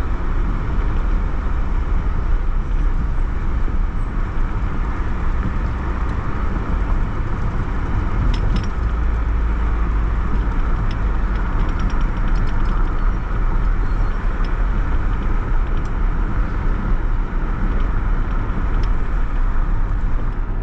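A car being driven at a steady pace: a continuous rumble of engine and tyre road noise, with a few faint clicks about eight and twelve seconds in.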